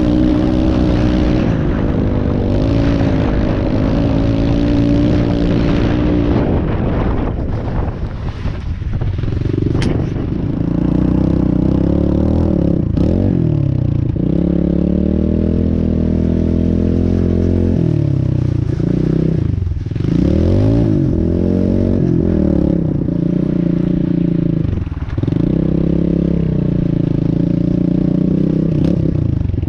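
Pit bike engine running under steady throttle while riding on a dirt road, with a rush of wind and gravel noise. About seven seconds in it backs off, then putters at low speed, its pitch dropping and picking back up several times as the throttle is closed and opened.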